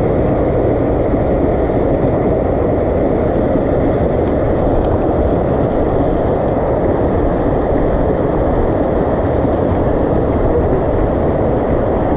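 Steady low rushing noise with no separate events and an even loudness throughout.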